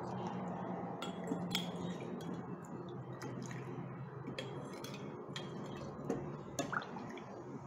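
Metal ladle clinking against the rim of a stainless steel cooker pot and a glass jug while barley water is ladled out: a dozen or so light, irregular clinks over a low steady hum.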